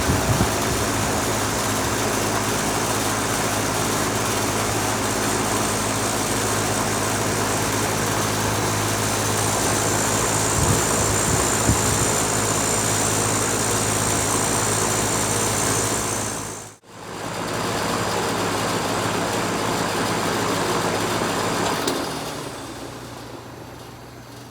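2013 Carrier Comfort Series heat pump running in heat mode: steady compressor hum under the rush of the outdoor fan. There is a sudden brief gap about two-thirds of the way through, and near the end the sound dies away as the unit shuts down, leaving a faint low hum.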